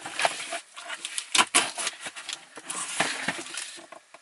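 A package being opened by hand: irregular rustling and scratching of packaging, with many small clicks and crackles.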